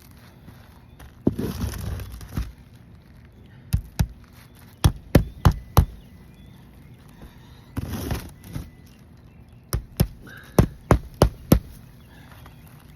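Nails being driven on a shingle roof: runs of sharp strikes about three a second, two, then four, then six, with two short spells of scraping rustle in between as material is handled.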